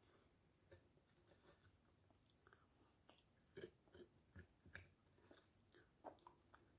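Faint chewing and small irregular clicks and taps of a person eating soft sugar apple (atis) flesh scooped with a wooden spoon, a little louder in the middle.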